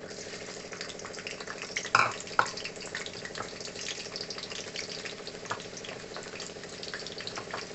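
Sliced onions and whole green chillies sizzling and crackling in hot oil in an aluminium kadai, just after being added. A brief louder knock comes about two seconds in.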